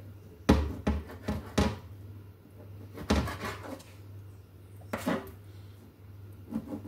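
A few sharp knocks and clunks, about five spread over several seconds, over a steady low hum.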